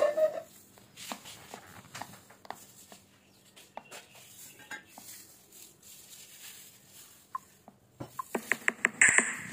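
Kitchen utensils and bowls being handled: scattered light clinks and taps, then a quick run of louder clicks and knocks near the end.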